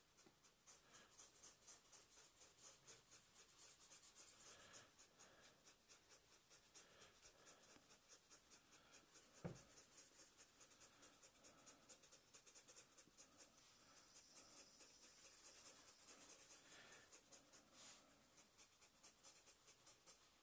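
Faint scratching of a felt-tip marker rubbed back and forth on paper to colour in an area, in quick, even strokes of about five a second. A single knock sounds about halfway through.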